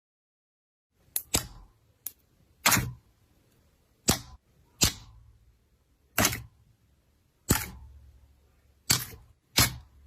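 Slime being played with by hand, giving sharp clicking pops as air pockets burst, about one a second, after a second of silence.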